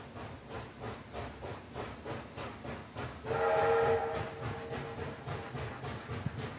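Steam locomotive working, its exhaust beating in a steady rhythm. It sounds a whistle blast about three seconds in that is loudest for under a second and then dies away.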